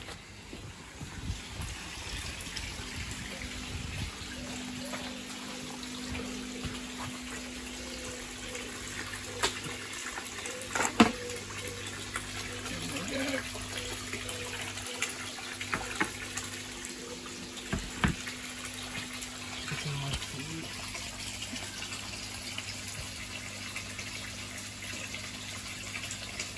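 Water running and splashing steadily into a fish pond, with a low steady hum underneath and a few sharp knocks, the loudest about eleven seconds in.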